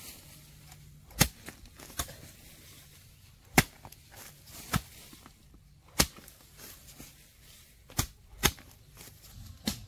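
About eight sharp strikes of a hand tool on bamboo, coming at an uneven pace.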